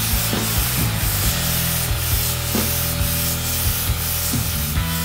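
Small tankless piston airbrush compressor running with a steady hum, while the airbrush hisses as it sprays paint, with scattered light knocks.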